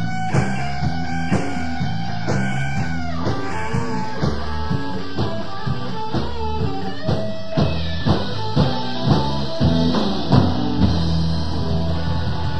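Rock-and-roll music with electric guitar, a stepping bass line and drum kit, with a run of louder drum hits in the second half.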